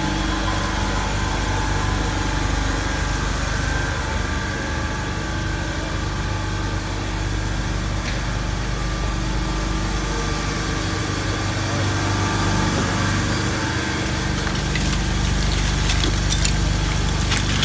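Plate ice machine running: a steady hum of its refrigeration compressor unit, with several constant tones. A few sharp knocks near the end.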